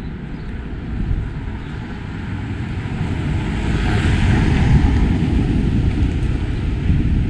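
A vehicle going by, its noise swelling to a peak about four to five seconds in, over a ragged low rumble of wind on the microphone.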